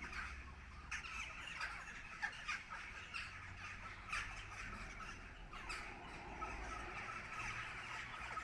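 A big flock of birds calling as it passes overhead, with many short, harsh calls overlapping in a constant racket.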